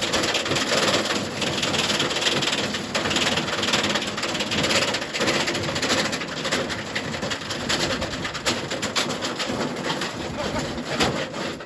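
Candy washing machine on a spin cycle as it is being wrecked: a dense, irregular clatter of banging and rattling from the drum and loose broken parts.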